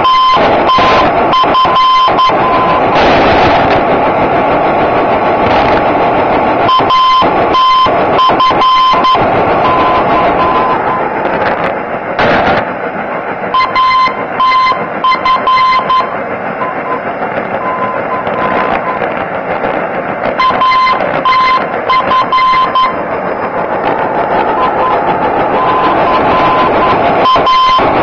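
A 245 kHz aviation non-directional beacon received on longwave radio: its Morse identifier YBA keyed as a steady beeping tone. The tone repeats as a short group about every seven seconds over a loud hiss of static with crackles.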